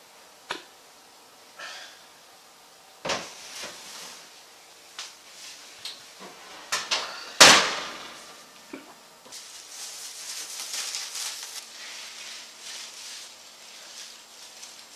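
Kitchen handling sounds from a roasting pan being taken out of the oven: a few knocks, the loudest about seven and a half seconds in. Then the crinkling rustle of a plastic baking bag being torn open and pulled off the roast.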